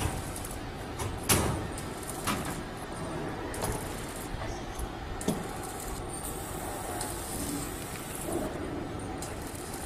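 Steel roof trusses being worked on by hand: a few sharp metallic knocks, about a second in, two seconds in and five seconds in, over steady background noise, with a thin high hiss in the second half.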